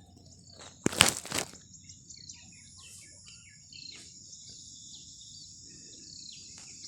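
Village morning ambience: small birds give many short chirps while an insect keeps up a steady high-pitched drone. A short loud noise sounds about a second in.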